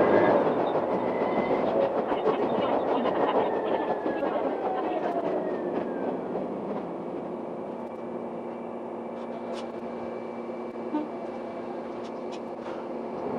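Akechi Railway diesel railcar (Akechi 102) slowing into a station: its running noise and a falling whine die away over the first six seconds. It then stands with the diesel engine idling steadily, with a few sharp clicks. Near the end the noise rises again as it pulls away.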